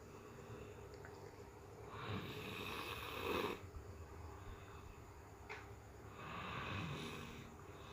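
A person snoring in their sleep: two long, noisy snoring breaths about four seconds apart.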